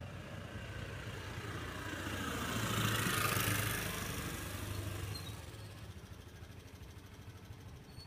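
A motor vehicle passing along the street, growing louder to a peak about three seconds in and fading away by about five and a half seconds, over a low steady engine hum.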